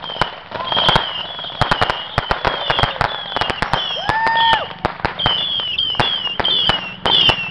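Small fireworks going off in a rapid, irregular string of sharp pops and cracks.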